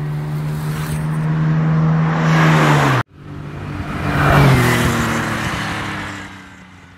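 Car engine approaching with a steady pitch, cut off abruptly about three seconds in. Then a car drives up and passes, its engine pitch dropping as it goes by and fading out near the end.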